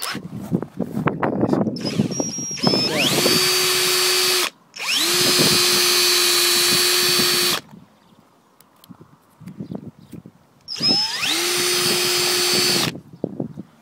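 Cordless drill spinning a rubber hog buffing tool against a tyre to buff out the damaged area. It runs three times, the middle run the longest, and each run winds up quickly to a steady whine. Irregular knocks come before and between the runs.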